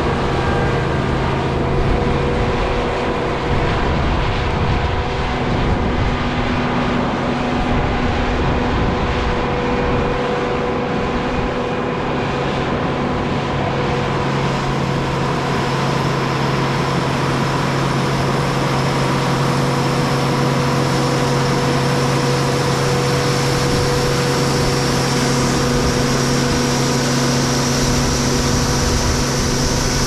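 Steady machine noise with several held tones, running without a break; a high faint whine comes in about halfway through.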